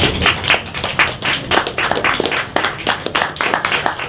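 Audience applauding, many hands clapping unevenly and continuously.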